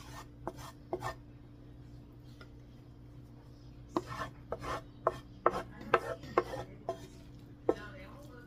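Wooden spoon scraping and knocking against a frying pan as sautéed onions are pushed out of it into a bowl: a couple of light taps near the start, then a quick run of knocks and scrapes from about four seconds in.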